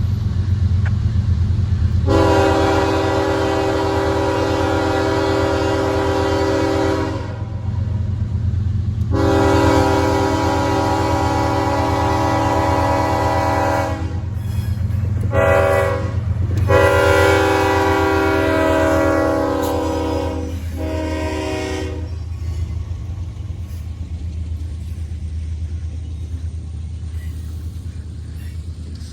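Canadian National freight train's diesel locomotive horn blowing the long-long-short-long grade crossing signal, a chime chord in four blasts that ends about three quarters of the way in. A steady low diesel engine rumble runs underneath.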